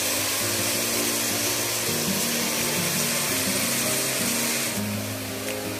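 Background instrumental music with changing sustained notes, over a steady hiss.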